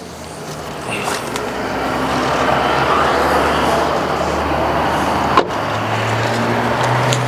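Steady rushing noise of a vehicle or nearby road traffic, swelling over the first two seconds. About five seconds in it breaks off sharply and a low steady hum joins it.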